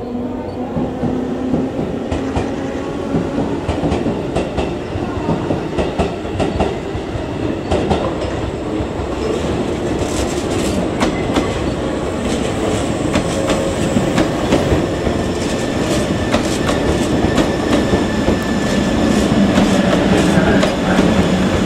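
JR 381 series limited express electric train running past, its wheels clacking over rail joints and points, with a steady rumble that grows louder as the cars go by.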